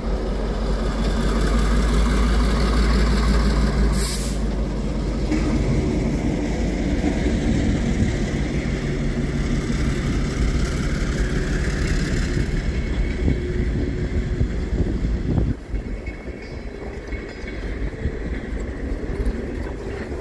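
EMD MP15AC diesel switcher locomotive passing with its engine running, followed by a string of freight cars rolling by on the rails. There is a short hiss about four seconds in.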